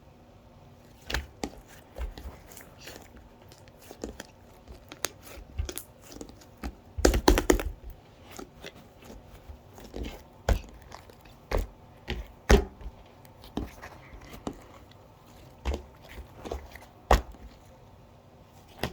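Irregular taps and knocks of small objects in a small room, with a denser burst of clatter about seven seconds in.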